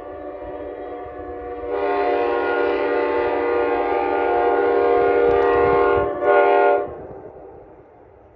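Locomotive air horn sounding a chord of several steady notes: a blast fading away, then a long loud blast, a brief break and a short final blast that cuts off. A low rumble runs underneath and fades after the horn stops.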